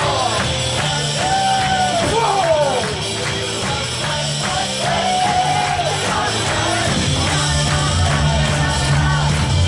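Wrestler's entrance music: a rock song with a singer over a steady beat.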